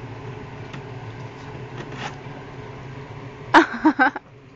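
Steady low hum of the room, then about three and a half seconds in three quick, loud pitched calls in a row.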